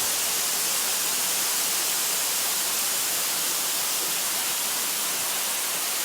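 Waterfall: the steady, hissing rush of falling water.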